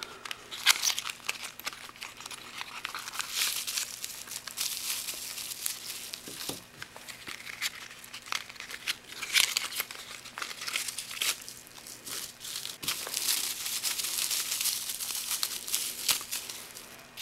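Bubble wrap and plastic packaging crinkling and tearing as they are pulled apart by hand, with many small crackles.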